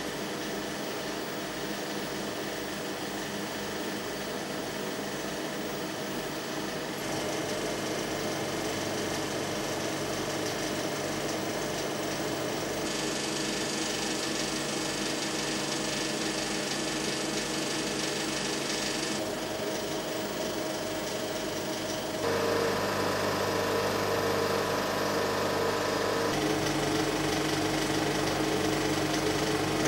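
35 mm film projector and platter system running: a steady mechanical whirring and rattle of the film transport. The sound changes abruptly several times and grows somewhat louder in the last third.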